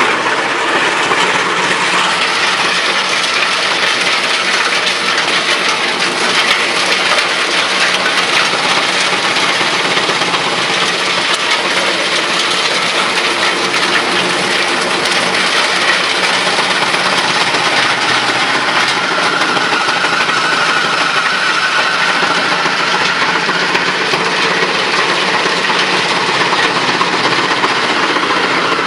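Model 216 drum wood chipper running steadily: a loud, dense machine noise with a faint low hum under it.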